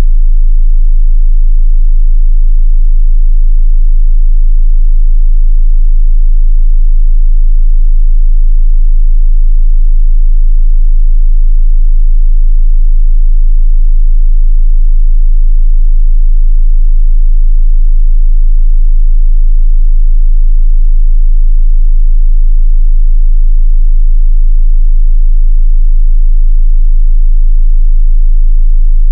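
A continuous 27 Hz sine test tone, a steady, very deep bass hum at constant loudness, used to check how low a subwoofer or headphones can reach.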